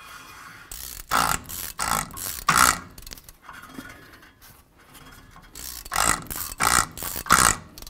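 Ratchet wrench snugging the rear hub nut by hand, without torquing it: two groups of about three short bursts of rapid pawl clicking as the handle is swung back and forth.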